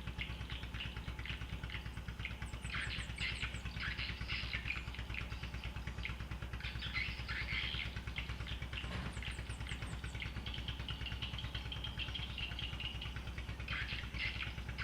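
A small engine idling steadily, with birds chirping and trilling over it several times.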